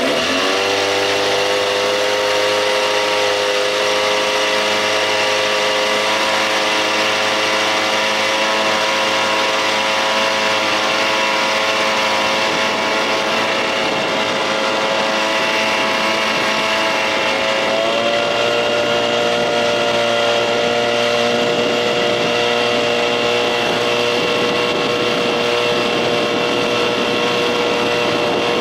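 Johnson outboard motor running steadily at high revs. The pitch climbs quickly at the start, holds, then drops slightly about two-thirds of the way through.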